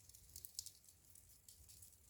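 Wood fire in a fireplace crackling softly: irregular small pops and snaps over a faint low rumble, with one sharper pop about half a second in.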